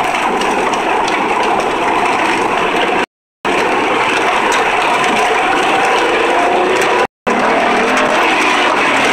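2003 Honda Accord's 3.0 L V6 running under way, with steady loud road and engine noise and the engine note rising near the end. The engine is logging random and multi-cylinder misfire codes (P0300–P0306). The sound cuts out briefly twice.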